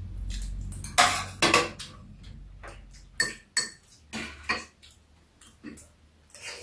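Metal spoons and chopsticks clinking and scraping against bowls at a meal: a string of sharp, irregular taps, the loudest two about a second in.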